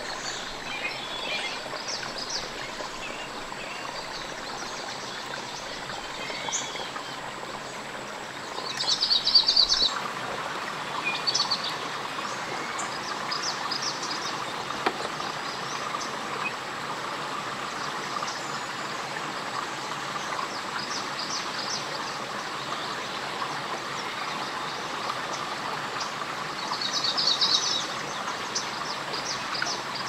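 Forest ambience: a steady hiss with birds chirping here and there, and two louder bursts of rapid high chirping, about nine seconds in and again near the end.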